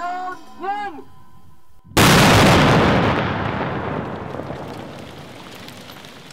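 The last words of a spoken countdown end about a second in. A second later a single large explosion goes off: a controlled demolition of unexploded ordnance. Its rumble fades slowly over the following four seconds.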